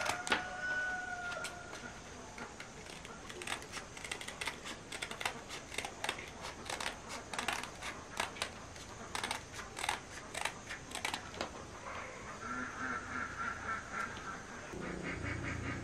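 A rooster's crow trails off in the first second or so, followed by a long run of irregular sharp clicks and taps. Near the end, ducks start quacking.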